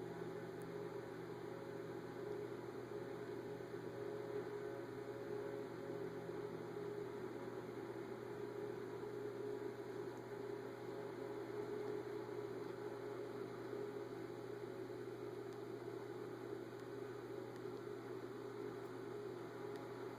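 A steady low electrical hum with a faint hiss behind it, unchanging throughout, with no distinct sounds standing out.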